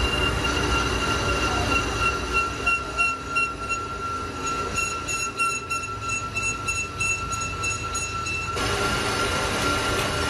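Metal lathe facing a truck clutch flywheel: the cutting tool squeals steadily against the spinning face over the machine's running noise. Near the end the higher part of the squeal drops out and the cut turns rougher.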